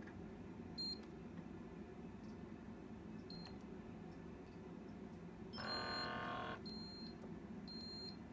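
Short, high electronic beeps a few seconds apart, with a longer, louder electronic tone about two-thirds of the way in, over a steady low hum.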